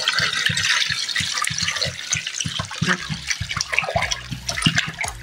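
Cold water poured from a large plastic bottle into an enamel pot full of meat, splashing steadily onto the meat and water with irregular glugs and splashes.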